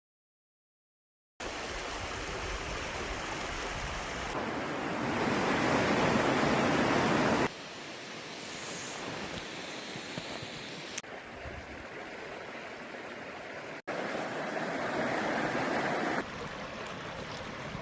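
Mountain stream water rushing, heard in a string of short clips that cut abruptly between louder and softer stretches. It starts after about a second and a half of silence.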